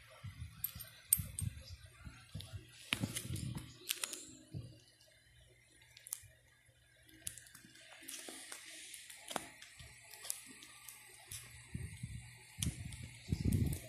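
Close handling of coins and a clear plastic coin-album page: scattered small clicks of coins, a rustle and crinkle of the plastic sleeves, and some low knocks.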